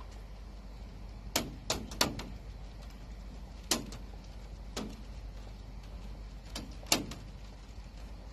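About eight short, sharp knocks at irregular intervals: four in quick succession in the second second, single ones near four and five seconds, and two more near seven seconds, over a steady low rumble.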